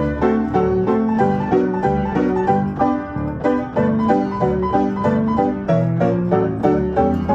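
Player piano playing a song from a perforated paper word roll: full piano chords over a moving bass, in a steady beat of notes.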